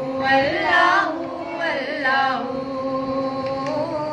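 A woman singing a hamd, a devotional Urdu song praising Allah. Two ornamented phrases with wavering pitch come in the first half or so, then steadier held tones.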